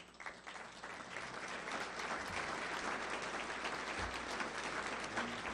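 Audience applauding. The clapping builds up over about the first two seconds, then holds steady.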